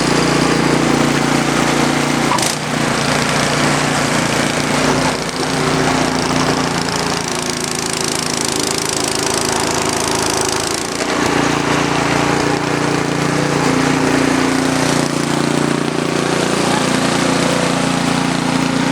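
Snow blower engine running steadily under load, a loud, even mechanical drone with a slight shift in its note about eleven seconds in.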